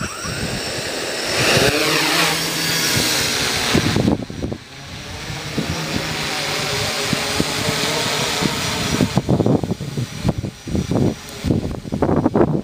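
Multirotor drone's electric motors and propellers spinning up, with the pitch rising over the first couple of seconds as it lifts off, then a steady hovering buzz. Irregular low buffeting comes in near the end.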